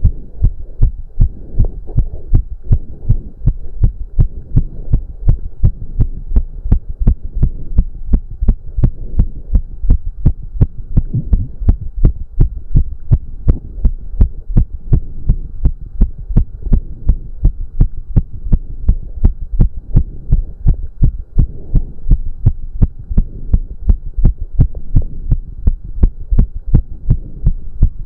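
A man's heart beating fast and evenly during cardio exercise, in a steady run of low thumps. Heavy breathing swells and fades underneath, over a faint steady hum.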